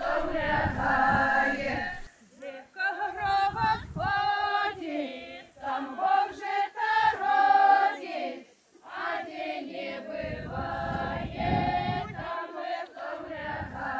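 Group of women singing a Belarusian folk song together, unaccompanied, in phrases with short breaths between them.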